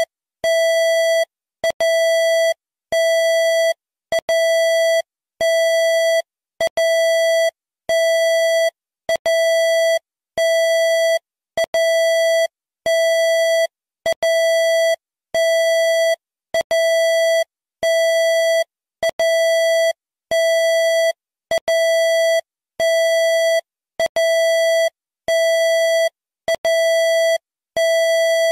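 Emergency alert system alarm: one steady, buzzy electronic tone beeping on and off at an even pace, each beep just under a second long and repeating about every 1.2 seconds.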